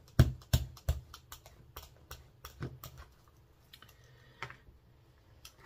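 Irregular light clicks and taps from a rubber brayer being rolled and dabbed on an ink pad and handled, several quick ones in the first second, then a few scattered ones.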